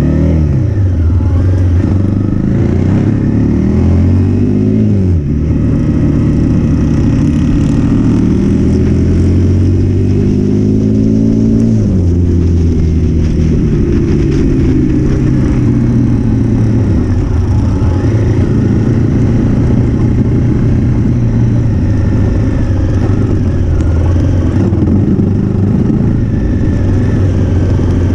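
Trail bike's single-cylinder engine pulling up through the gears, its pitch climbing and then dropping sharply at each shift, about 5 and 12 seconds in. After that it runs at a steadier, lower speed.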